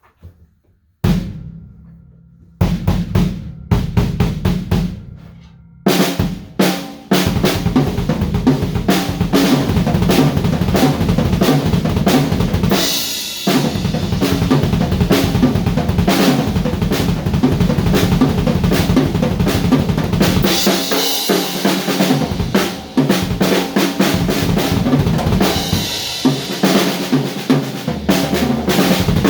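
An acoustic drum kit being played. A few separate drum strikes ring out over the first six seconds, then a continuous beat on snare, bass drum and toms follows, with cymbal wash coming in several times.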